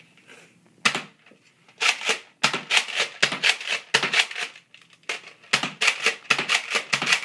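Nerf Recon MK II blaster being primed and fired over and over: a quick run of sharp plastic clacks and pops from its pull-back priming bolt and dart shots. It starts about a second in and goes on in short clusters.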